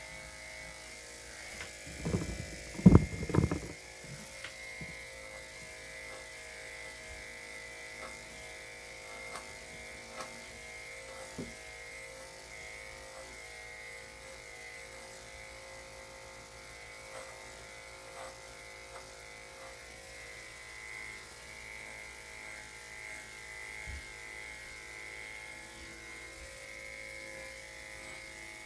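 Electric dog clippers with a #5 blade running with a steady hum through a poodle's coat. A brief cluster of loud knocks comes about two to three seconds in.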